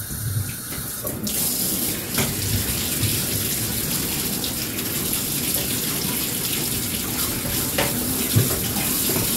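Bathtub tap running steadily, water pouring into the tub over a large dog being wetted down. The flow grows louder and hissier about a second in.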